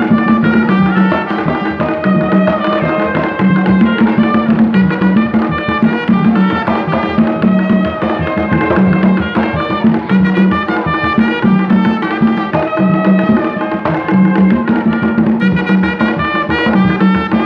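Live folkloric band playing an upbeat dance tune: tall hand drums keep a steady beat under trumpet and other brass horns carrying the melody.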